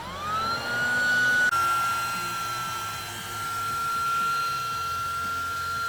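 Battery-powered air mattress pump running, its motor whine rising in pitch over the first second as it spins up, then holding steady while it inflates the mattress.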